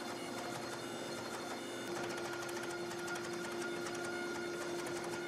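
Steady machine drone of forging equipment running, with a held hum that grows slightly louder and steadier about two seconds in.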